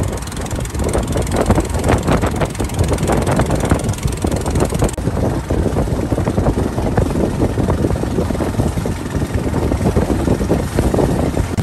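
Small fishing boat on choppy open lake water: heavy wind buffeting the microphone and water slapping the hull, with an engine running underneath. The highest hiss eases about five seconds in.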